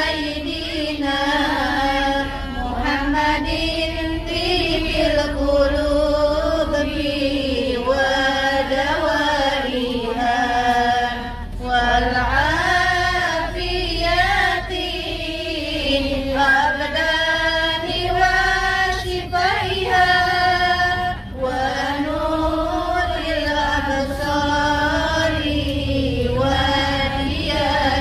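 Melodic devotional chanting: long, wavering sung lines with brief pauses between phrases, over a low steady rumble.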